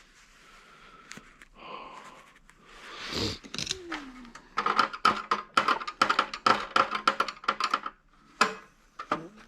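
Rapid run of sharp metallic clicks and rattles, with a brief falling squeak before it and a single louder knock near the end: hand tools working screws and parts loose while dismantling scrap electronics.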